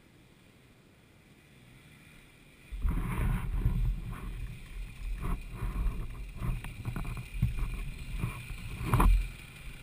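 Irregular low rumbling, rubbing and sharp knocks on a camera mounted on a dirt bike, as a rider in motocross gear moves against the bike and jostles it. The noise starts suddenly about three seconds in, and the loudest knock comes near the end.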